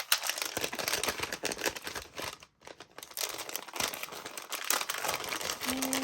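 Gift wrapping paper crinkling and rustling as it is handled and pulled open by hand, with a short pause about two and a half seconds in.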